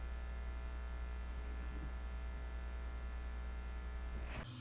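Steady electrical mains hum with many evenly spaced overtones, which cuts off abruptly near the end.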